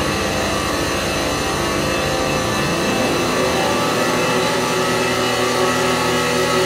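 Eurorack modular synthesizer feedback loop run through Make Noise echo modules: a dense drone of many sustained tones with a fast low shuddering pulse underneath. About three seconds in the low pulsing fades out and steadier held tones remain.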